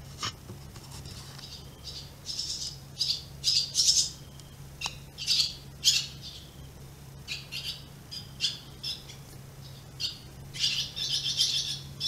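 Birds squawking and chirping in short, harsh calls that come in clusters, busiest near the end.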